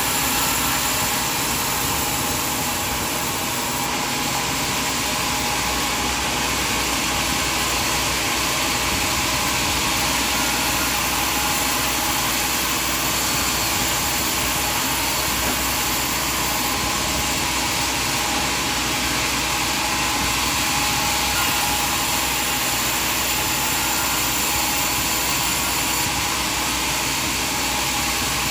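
Sawmill machinery running steadily: a continuous, even mechanical rush with a thin high whine over it, unchanged throughout.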